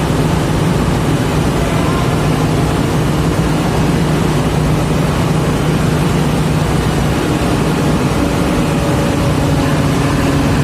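A heavy diesel engine running steadily at a constant pitch, with a second, higher steady tone coming in about seven seconds in.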